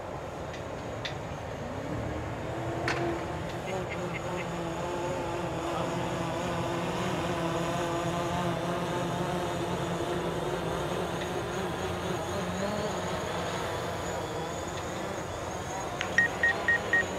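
DJI Mavic Pro quadcopter with low-noise propellers hovering and descending close by: a steady propeller hum whose pitch rises about two seconds in and then holds. Near the end a run of short high beeps, about four a second, begins.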